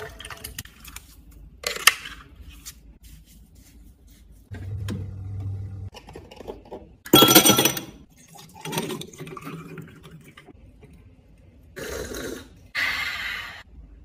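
Separate kitchen handling sounds from making drinks: short knocks and clinks of cups and glassware. The loudest, about seven seconds in, is a clatter of ice cubes going into a stemmed glass.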